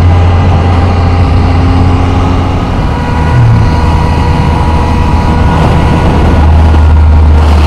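Motorcycle engine running at a steady cruise, with wind rush over the microphone. The engine hum eases slightly about three seconds in and grows a little louder near the end.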